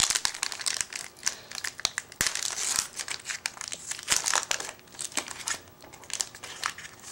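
Foil wrapper of a 2010 Bowman Chrome trading-card pack crinkling in irregular crackly bursts as it is handled and torn open, with sharp clicks of the foil.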